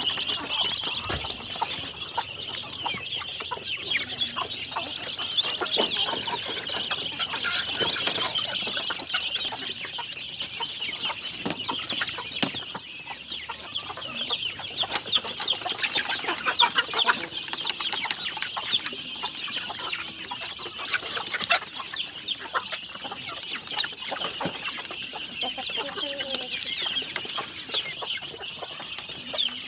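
A flock of native chickens clucking continuously while feeding, with many short sharp ticks throughout, fitting beaks tapping on concrete and metal feed pans.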